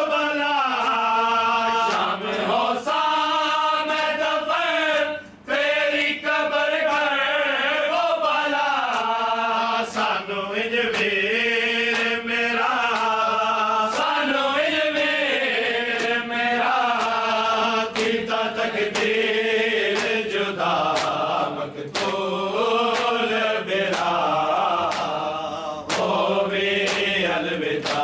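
Men's voices chanting a noha, a Shia mourning lament, to a wavering melody. Rhythmic strikes about once a second keep time with the chant, typical of matam, the beating of the chest with the palms.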